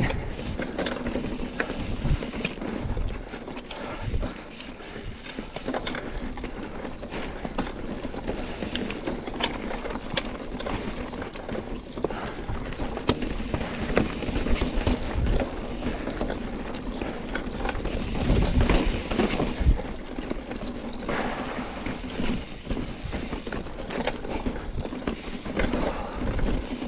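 Mountain bike ridden along a rough trail: the tyres, chain and frame rattle and clatter with many small clicks and knocks. The rattle gets louder for a couple of seconds about two-thirds of the way through.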